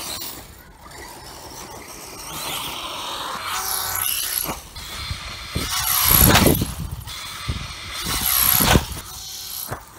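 Kyosho DBX VE 4WD brushless RC buggy being driven: a high whine from the electric motor and drivetrain that swells and fades with the throttle. There are two loud bursts of running noise, about six and eight and a half seconds in.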